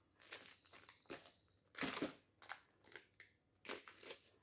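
Plastic packets of crispy-frying flour crinkling as they are handled, in several short faint rustles, the loudest about two seconds in.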